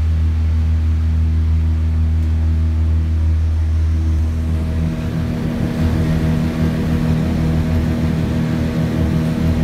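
Plant-room machinery running with a loud, steady low hum and a steady tone above it; about five seconds in the hum turns rougher and more rumbling.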